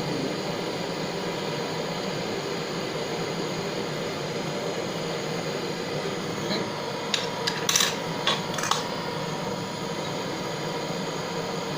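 A metal tool scraping and clinking against the crucible a few times, skimming dross off molten solder, over a steady hiss. The clinks come in a short cluster past the middle.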